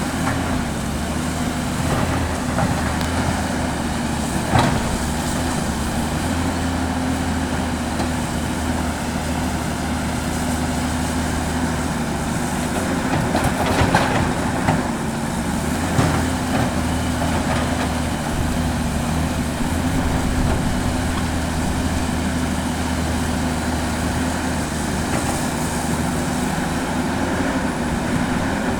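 Caterpillar 329D L hydraulic excavator's diesel engine running steadily while loading earth, with a few sharp knocks and clanks, the loudest two about halfway through.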